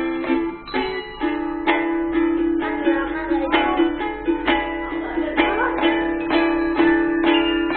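Ukuleles strummed in a steady rhythm, about two strokes a second, with handbells ringing sustained notes underneath.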